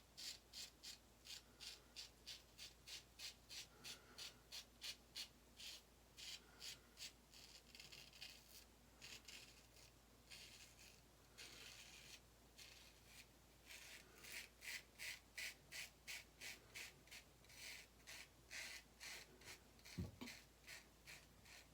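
Autostrop safety razor scraping through lathered stubble in quick, short, even strokes, about three a second, with a couple of short pauses. A soft knock near the end.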